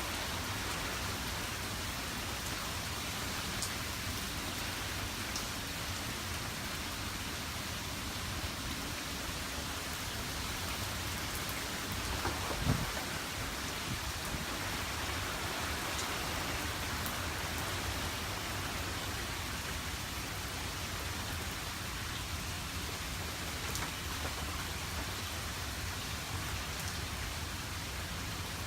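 Heavy rain pouring steadily in a torrential downpour, with one brief low thump about halfway through.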